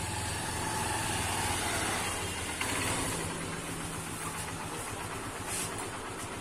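Honda CB Unicorn motorcycle's single-cylinder engine idling steadily.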